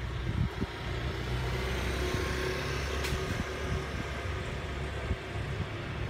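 Street traffic: a steady low engine hum with vehicles passing, one swelling and fading about two seconds in.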